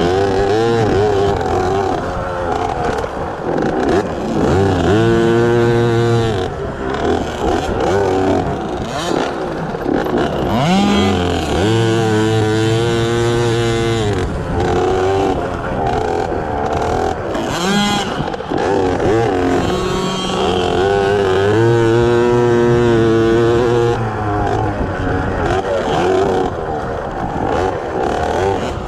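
A KTM 50 kids' dirt bike's small single-cylinder two-stroke engine revving up and down as it is ridden. Three times it holds a steady high rev for a couple of seconds before dropping off again.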